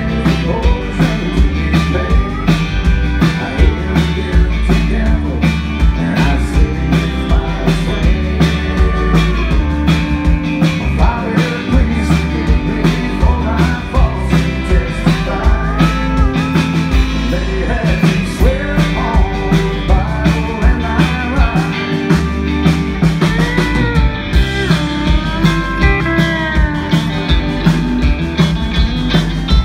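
Live country band playing loud and full: electric guitar, bass and drums on a steady beat, with pedal steel guitar, and long bending lead notes over the top.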